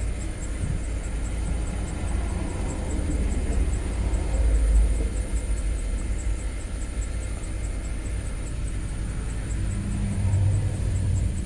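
Land Rover LR3's 4.4-litre V8 idling rough with a dead miss on cylinder 7, a steady low rumble that swells briefly a couple of times.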